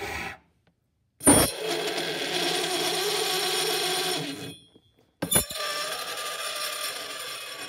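Copper pipe screaming against a lump of dry ice: the metal is set vibrating as the dry ice sublimates where the warmer pipe touches it, the 'screaming spoon' effect. There are two long, steady, high-pitched squeals, each starting with a sharp knock of pipe on ice. The first begins about a second in and lasts about three seconds; the second begins about five seconds in.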